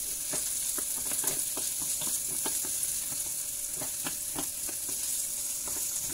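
Sliced onion sizzling in hot olive oil in a nonstick frying pan, stirred with a wooden spatula that clicks and scrapes against the pan many times. A faint steady hum runs underneath.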